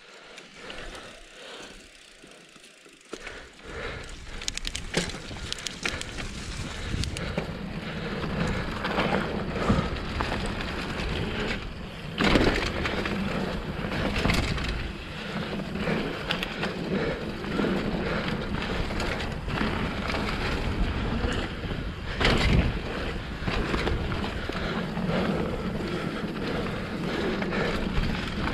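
A 2012 Giant Glory downhill mountain bike being ridden fast down a dirt jump trail: knobby tyres rolling on dirt and the bike rattling, quiet for the first few seconds and building as speed picks up. Heavy thuds of jump landings come just before halfway and again about three quarters through.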